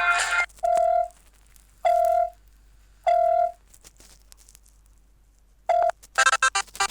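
Ringtones of a Fly FS458 Stratus 7 mobile phone. A musical ringtone cuts off, then a simple alert tone plays three identical steady beeps about a second apart. After a pause, the next ringtone starts near the end with a quick run of short beeps.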